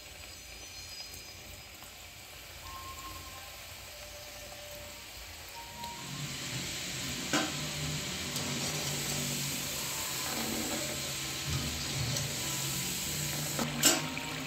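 Kodubale dough rings deep-frying in hot oil in a kadai: the oil bubbles and sizzles, getting louder about six seconds in and staying steady, with two sharp knocks.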